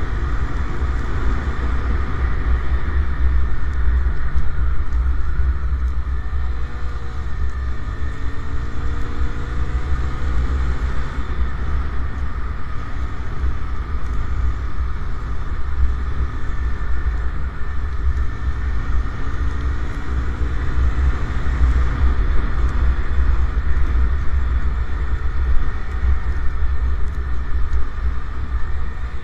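A motorcycle on the move: heavy wind rumble on the microphone with the engine running underneath, its note gliding up a few times as the bike picks up speed.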